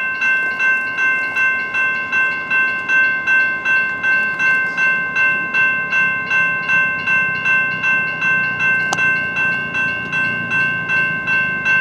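Railway crossing warning bell ringing steadily, about three strokes a second. A low rumble from the approaching passenger train builds over the last few seconds, with one sharp click about nine seconds in.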